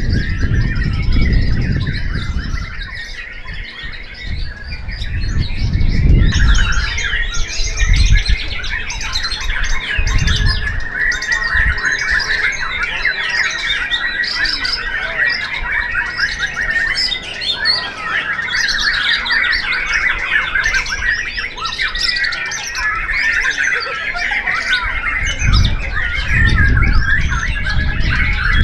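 White-rumped shama (murai batu) singing a long, fast run of varied whistles and chatter, with other caged songbirds singing over it at the same time. Low rumbling comes and goes underneath, at the start and again near the end.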